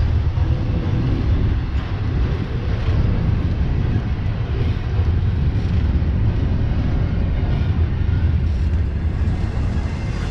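Double-stack intermodal freight train rolling past: a steady, loud low rumble and rattle of steel wheels on the rails, with a few faint clicks.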